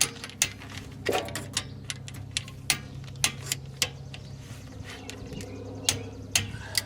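Irregular sharp metallic clicks and clinks of hand tools being worked at the differential cover bolts, over a steady low hum.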